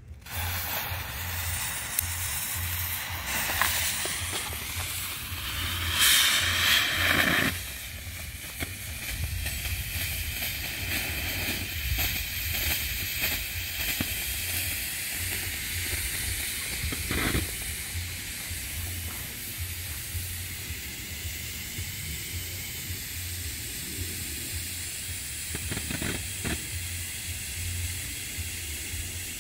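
Firework smoke fountains hissing steadily as they pour out coloured smoke. The hiss starts just after the fuse is lit and swells louder for a second or so about six seconds in.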